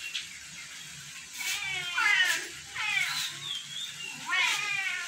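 Domestic cats meowing: about four loud meows in quick succession, each bending down in pitch.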